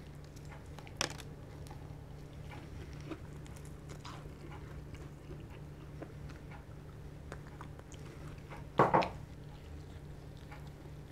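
Close-up eating sounds of crispy spicy fried chicken: bites into the fried coating and chewing, with small crunches. A sharp click comes about a second in, and a louder double crunch comes near the end. A steady low hum runs underneath.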